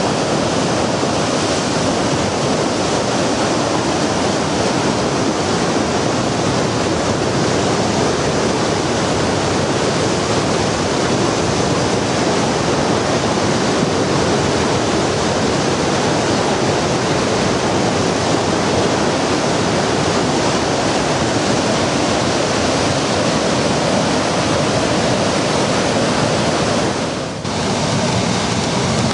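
Floodwater rushing: a loud, steady rush of water, briefly dipping once near the end.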